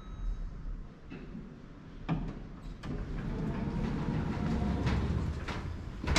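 Lift doors sliding, with a few clunks and then a low mechanical rumble lasting about three seconds.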